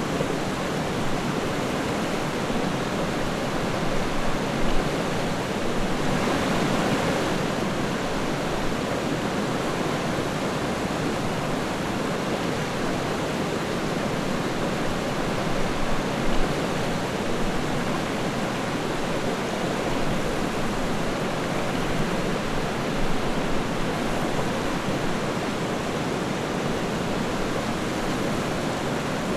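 River water rushing and burbling steadily over rocks, with small surges of louder splashing now and then.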